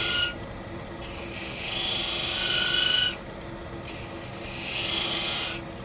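D-Way beading tool plunge-cutting beads into wood spinning on a Robust lathe. It makes a scraping hiss in strokes that each swell and then stop abruptly: the tail of one at the start, a two-second cut, then a one-second cut near the end. The lathe's motor hum runs steadily underneath.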